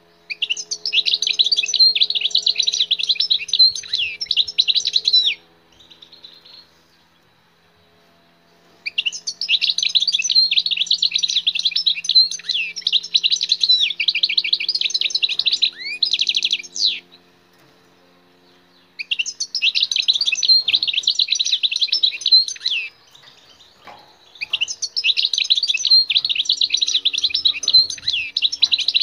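Wild-caught European goldfinch singing: four bouts of rapid, twittering song, each several seconds long, with pauses of a couple of seconds between them.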